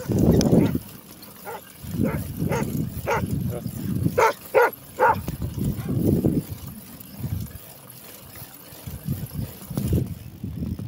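A dog barking, about seven short barks in a row, the last three loudest, over low wind rumble on the microphone.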